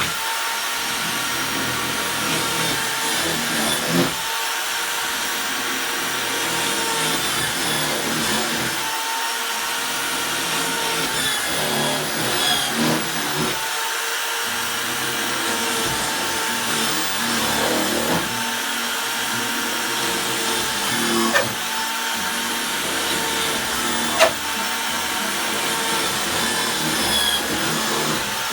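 Electric drill running as it bores starter holes through wood for a saw blade to pass through, a steady motor whine with short dips every few seconds and a couple of sharp clicks.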